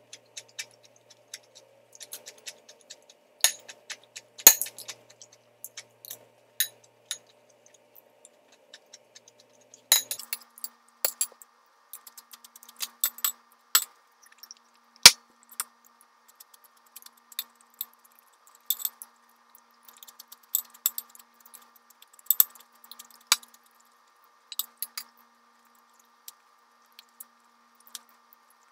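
A metal spoon and chopsticks clinking and scraping against a glass bowl of rice, in scattered light taps with a few louder clinks. A faint steady background hum runs underneath and steps up in pitch about ten seconds in.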